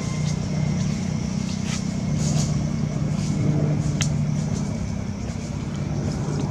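A steady low mechanical hum, like an engine running, with faint short clicks scattered through it, a sharper one about four seconds in.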